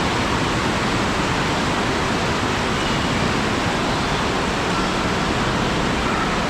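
Steady, loud rush of flowing water, as of water pouring down a waterslide flume.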